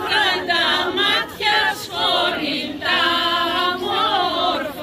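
A group of villagers singing a traditional Damasi Easter folk song together, unaccompanied.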